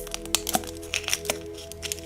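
Background music holding a steady chord, over quick irregular crackling and clicking from wrapper and plastic packaging being handled.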